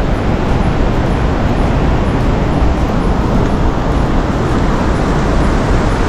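Steady rushing of the Cusiana River: an even, unbroken roar of running water, heaviest in the bass.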